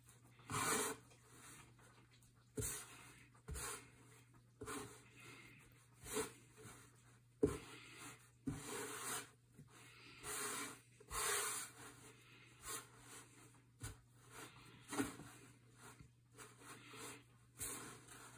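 Hands rubbing, pressing and gathering dry, crumbly semolina-and-egg pasta dough on a wooden board, in irregular scraping strokes, with one sharp knock about halfway through. The dough has not yet come together.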